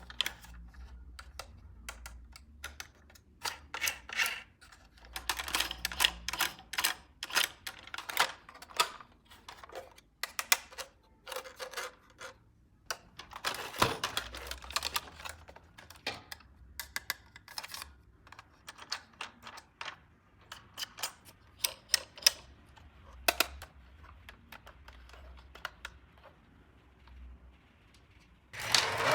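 Hands handling a toy RC car and its plastic packaging: irregular sharp clicks and taps, with a few short rustles, one louder rustle near the end.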